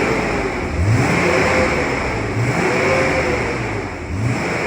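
BMW E36 M3's inline-six engine being revved while stationary: three blips, each climbing in pitch and falling back toward idle, about a second and a half apart.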